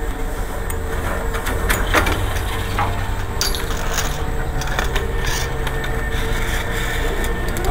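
Crunching and scraping of snow under someone sliding down the slope, over a steady low rumble, with a few sharper clicks and scrapes.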